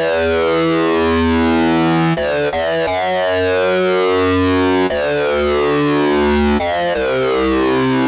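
Harpy 260, the ARP 2600 emulation in IK Multimedia Syntronik, playing its "Sync Sweep Slow" oscillator-sync patch. It holds notes that change every second or two, and each new note sets off a falling sweep in its bright upper overtones.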